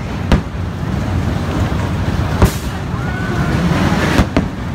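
Fireworks display: four sharp bangs, the last two close together near the end, over a steady low rumble of the show.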